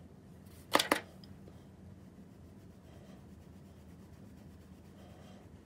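Two sharp taps close together about a second in, then a makeup brush softly sweeping contour powder over the skin of the cheek, over a low steady hum.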